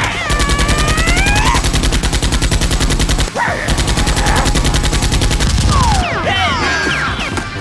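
Rapid automatic gunfire, a machine-gun effect, in two long unbroken bursts of about three seconds each with a brief break between them.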